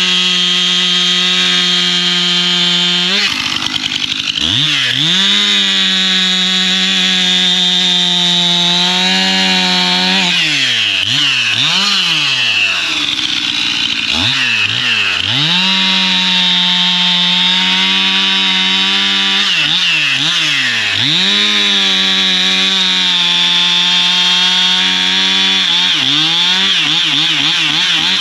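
Stihl MS 271 chainsaw's two-stroke engine running at high revs. The throttle is let off and opened again several times, so the pitch falls and climbs back up.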